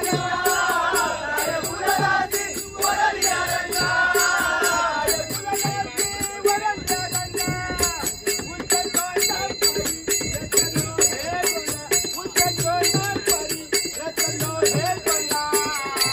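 Group singing a Marathi abhang, with small hand cymbals ringing on a quick, steady beat.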